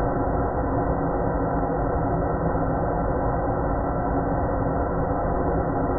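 Creepy horror ambient drone: a steady, dense layer of many held tones over a low rumble, unchanging throughout.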